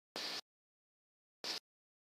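Two short bursts of hiss that cut in and out abruptly, with dead silence between them. The first comes just after the start and the second about a second and a half in.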